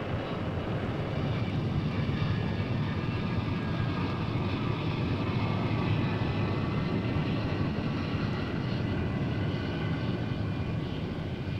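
Jet aircraft engine noise: a steady low rumble with a faint high whine.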